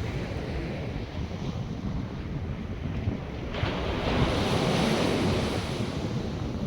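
North Sea surf washing onto the beach, with one wave breaking louder from about three and a half seconds in and easing off near the end. Wind buffets the microphone underneath.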